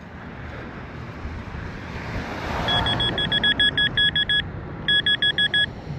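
Metal detector beeping in quick runs of short two-tone electronic pips, about six a second, starting about three seconds in: it is sounding on a buried target being probed in the dig hole. Road traffic hisses beneath it.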